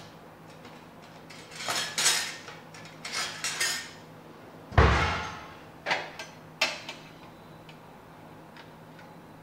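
Kitchen utensils clattering and clinking as a knife and a metal spatula are picked up, with one heavy thud about halfway through and a couple of sharp clicks after it.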